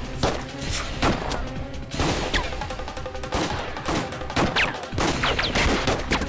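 A gun battle: a string of gunshots at irregular intervals, about one or two a second, with a few short whistling whines among them.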